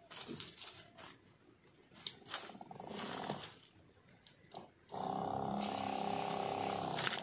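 Electric pump of a battery backpack sprayer running with a steady hum for about two seconds, starting about halfway through and stopping just before the end. Before it comes scattered rustling and clicking.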